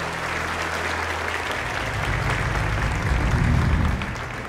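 Audience applauding, a dense patter of clapping, over a low steady drone that swells and grows louder from about two seconds in.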